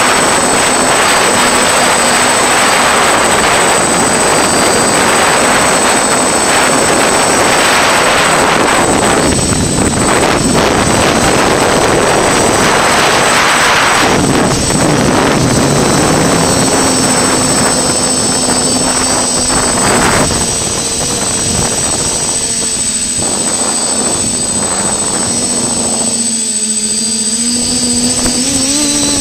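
FPV drone's motors and propellers whirring, with heavy rushing air noise on its onboard camera microphone. The motor hum shifts in pitch near the end, and the rush drops somewhat about two-thirds of the way through.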